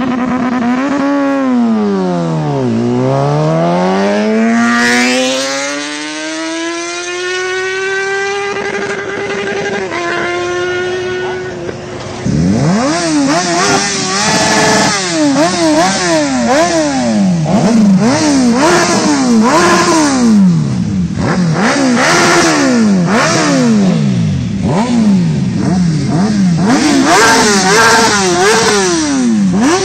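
A sportbike engine revs hard, its pitch dipping and then climbing steadily as it accelerates, with a gear change around ten seconds in. From about twelve seconds in, parked sportbikes' engines are blipped over and over, each rev shooting up and falling back, about one a second.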